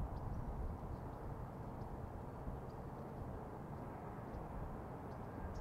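Outdoor ambience: a steady low rumble with faint, scattered short high chirps.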